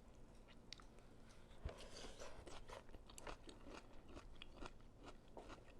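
Close-up eating sounds: faint chewing with small crunches and wet clicks, busiest in the middle, and one sharp knock about a second and a half in.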